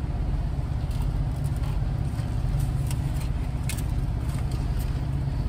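Steady low rumble of a vehicle idling, heard from inside the cabin, with a few short faint clicks and rustles as cups and items are handled.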